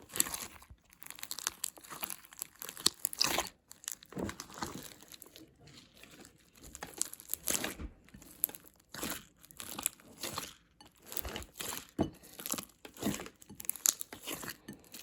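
Homemade slime squeezed and worked in the hands, giving off irregular crackling and popping clicks.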